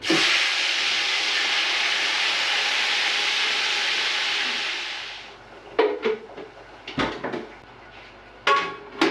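Loud sizzling as a jollof base is poured into hot frying oil in a large pot. It starts abruptly and dies away after about five seconds, and a knock follows a couple of seconds later.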